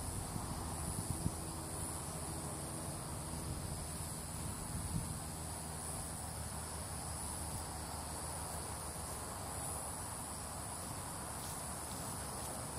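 Steady high-pitched insect chirring over a low, even rumble.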